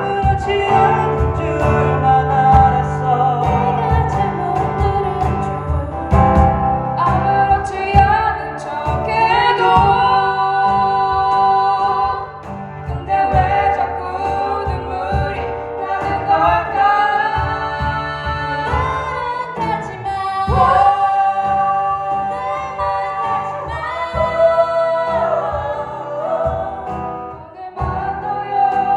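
A singer performing a slow Korean pop ballad live, with band accompaniment under the voice; the sung melody holds long notes and slides between pitches over steady bass notes.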